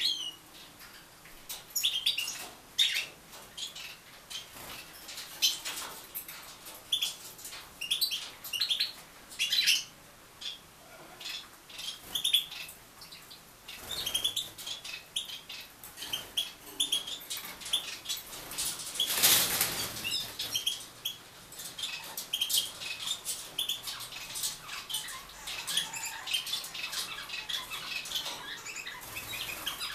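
Small aviary birds chirping in short, sharp calls, several every few seconds, mixed with the flutter of wings. About two-thirds of the way through there is a louder rush of wingbeats.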